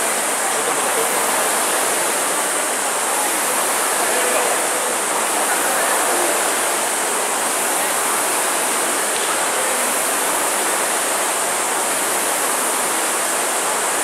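Many Concept2 rowing ergometers running at once, their air-braked fan flywheels making a steady whirring rush under the rowers' strokes.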